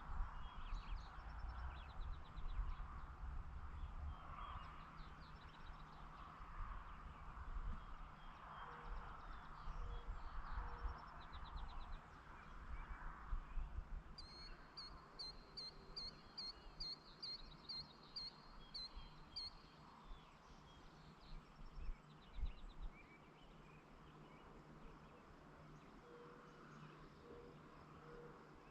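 Rural evening ambience: a songbird repeats one high, clear note about twice a second for several seconds midway, with faint chirps from other birds around it. An uneven low rumble comes and goes under it, mostly in the first half.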